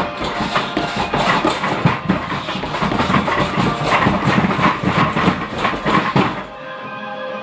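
Rapid flurry of punches thudding into a hanging heavy bag, several strikes a second, stopping abruptly about six and a half seconds in.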